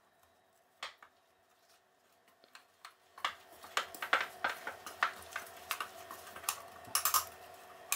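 A spoon stirring chopped, sugared strawberries in a wooden bowl: irregular soft clicks and scrapes of the spoon against the bowl. After a single click near the start, the clicks become frequent from about three seconds in.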